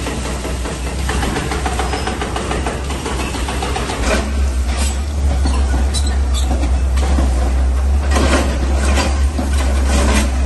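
Diesel engine of a CAT 320B excavator running steadily, working harder about four seconds in, with several sharp knocks and clanks over the engine sound.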